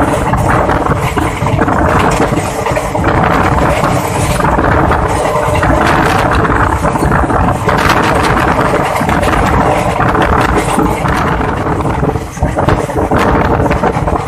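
Passenger train coach running along the track: a steady rumble with scattered clicks of the wheels on the rails, and wind on the microphone at the open window.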